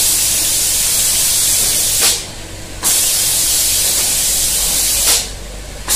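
Automatic painting machine's spray guns hissing steadily, cutting off twice for under a second, each time with a short click, then starting again; a low machine hum runs underneath.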